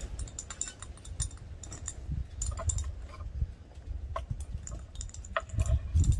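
Irregular light clicks and clinks of a spoon against a container as garlic in chili oil is scooped in; the garlic sticks and won't come off easily. Under it runs a low rumble of wind on the microphone.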